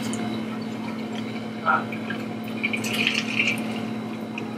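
Wet eating and drinking sounds at a table: mouth sounds of chewing, and a drink being taken from an insulated stainless steel bottle, over a steady low hum.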